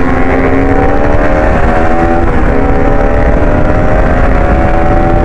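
Bajaj Pulsar RS200's single-cylinder engine pulling hard under acceleration, its pitch climbing for about two seconds, dropping briefly at an upshift, then climbing again, with wind rumble underneath.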